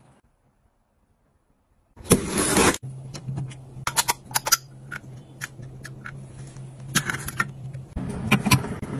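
A plastic pop-up sink drain stopper being handled and pushed into a basin, giving a series of sharp plastic clicks. A short loud rushing noise comes about two seconds in, and a low steady hum runs beneath the clicks.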